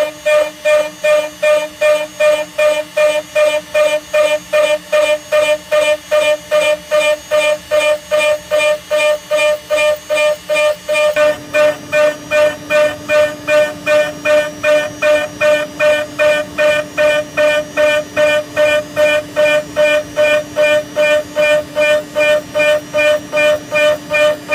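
A ShopBot CNC router's spindle at 18,000 RPM drives a 4 mm two-flute end mill dry through low-carbon steel, giving a steady high whine. The whine pulses about two and a half times a second as the trochoidal toolpath loops the cutter in and out of the cut. About eleven seconds in, a lower steady hum joins it.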